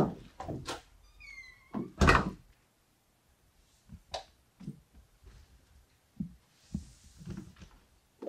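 A front door being pushed shut, with a loud thump about two seconds in, among footsteps, bumps and a few short squeaks. Then come softer knocks and a brief rustle as a person settles onto the floor against the door.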